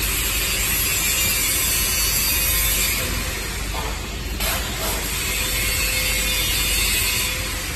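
Jewelry laser welding machine with a rotary fixture running: a steady, dense mechanical noise that dips briefly about halfway through.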